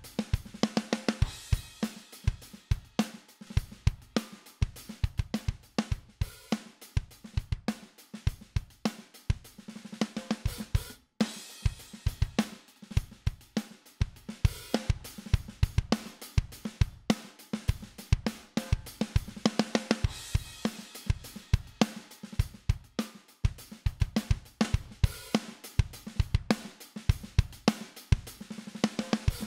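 A mixed drum-kit bus with kick, snare, hi-hats and cymbals playing a steady groove through a Midas 522 500-series compressor while its controls are turned. The drums break off briefly about eleven seconds in.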